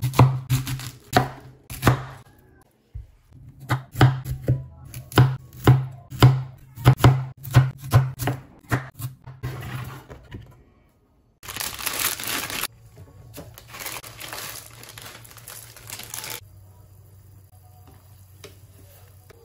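Cleaver chopping cabbage and then carrot on a wooden cutting board: sharp knocks of the blade on the board, about three a second. About eleven seconds in comes a loud burst of rustling, tearing noise, followed by a few seconds of softer rustling.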